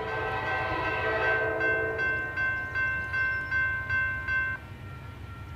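Railroad grade-crossing warning bell ringing about two and a half to three strokes a second, then stopping abruptly about four and a half seconds in while the crossing gate arm lowers. A horn-like chord sounds over it in the first second and a half.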